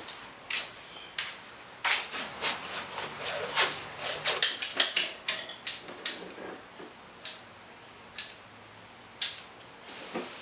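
A run of short clicks, knocks and scrapes from objects being handled, coming thickly a couple of seconds in, then thinning to a few single knocks.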